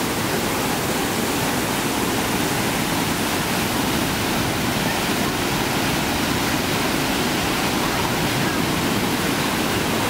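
Chagrin Falls in high, muddy flow: a steady, unbroken rush of water pouring over the ledge and churning in the pool below.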